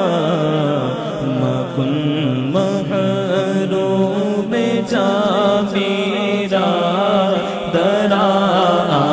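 A solo male voice sings a Persian naat without accompaniment, in long, drawn-out, wavering notes.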